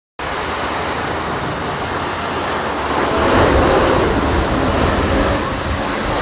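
Jet engines of a landing Boeing 747 freighter: a steady, loud rush that grows louder about three seconds in.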